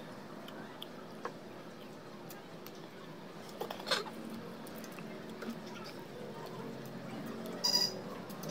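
People eating chocolate: small chewing and mouth clicks over a steady room hum, with a short laugh about four seconds in and a brief sharp high-pitched sound near the end.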